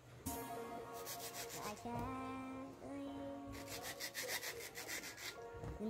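Paring knife scraping and cutting through mango skin in two spells of rapid, rasping strokes, over background music with a sung melody.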